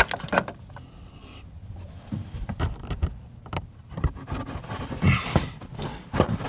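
Hands working a plastic footwell light pod and its push pin into a carpeted under-dash trim panel: scattered clicks, knocks and scrapes of plastic and fabric.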